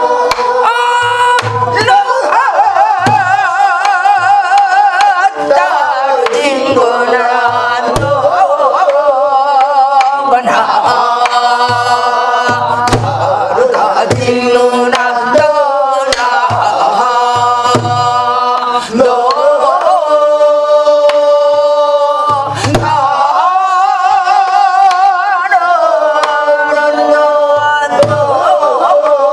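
A woman singing Korean gueum, a wordless melody on syllables, with wide vibrato and sliding pitch, accompanying herself on a buk barrel drum: irregular deep strokes on the drumhead and a few sharp cracks of the stick on the drum's wooden body.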